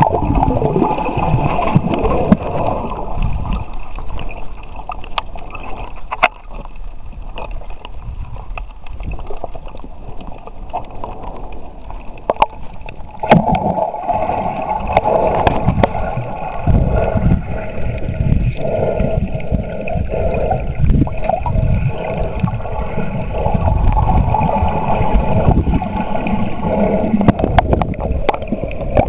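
Muffled water noise picked up by a camera held underwater: irregular sloshing and gurgling, with a few sharp clicks now and then.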